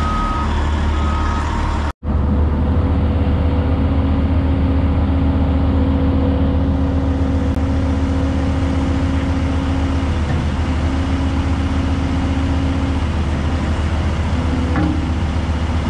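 Heavy diesel machinery (excavators at work on a stuck wood chipper) running steadily, a deep engine hum with a steady whine above it. A travel alarm beeps twice near the start, and the sound cuts out for an instant about two seconds in.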